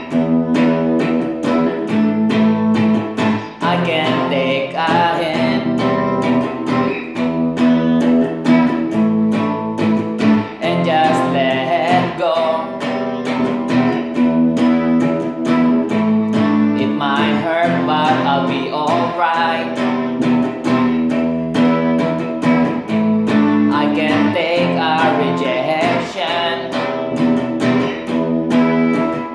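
Stratocaster-style electric guitar played as a melodic lead of picked single notes over sustained low notes that change about once a second; wavering, bent high notes come up several times.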